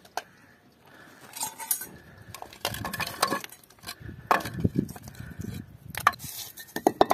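Metal hand tools such as pliers and scissors being shifted about on brick, clinking and clattering irregularly, with a few sharper knocks near the end.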